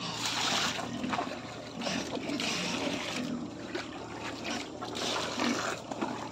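Water splashing and sloshing in three bursts, each lasting about a second or less.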